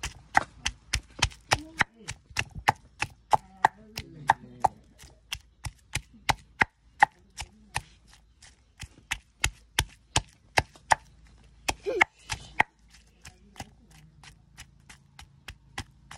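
Pestle pounding shallots, garlic and chilli in a clay mortar: a steady run of thuds about three a second, softer in the last few seconds.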